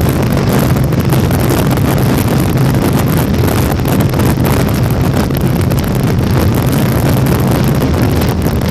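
Motorcycle riding at a steady cruising speed: an even, low engine drone under heavy wind rushing over the microphone.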